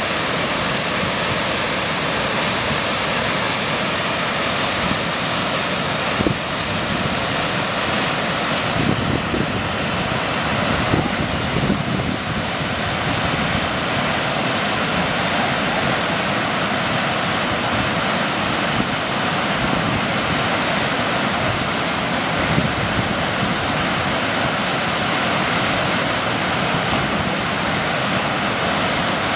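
Steady, loud rushing of churning whitewater at a river standing wave.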